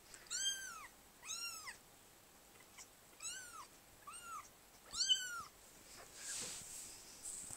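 Two-week-old kitten mewing: five short, high-pitched mews, each rising then falling in pitch, with a soft rustle near the end.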